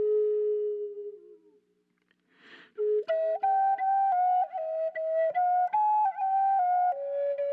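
Solo flute music. A long held note fades out about a second in, and after a short pause a slow melody of stepped notes begins about three seconds in.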